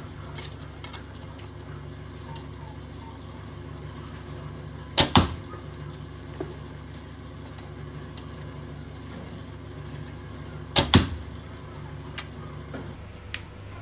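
Two shots from a Dacian recurve bow, about six seconds apart: each is the snap of the released string followed a split second later by the arrow striking the target.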